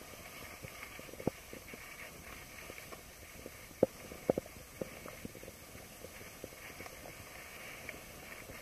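Skis sliding over packed snow: a steady rushing noise broken by irregular low thumps and knocks, the loudest a little after a second in and twice around the middle.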